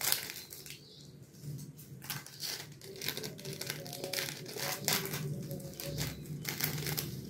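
Small plastic dehydrated-vegetable sachet crinkling as fingers squeeze and shake it to empty it, making irregular crackles.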